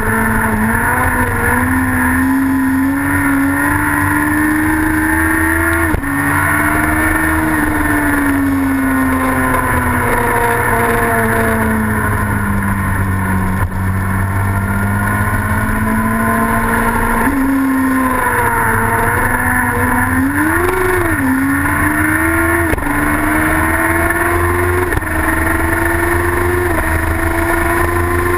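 Racing sidecar outfit's engine at high revs, heard onboard over the rush of air. Its pitch climbs and sags with throttle and gear changes: a sudden drop about six seconds in, a quick blip around twenty seconds, then climbing in steps near the end.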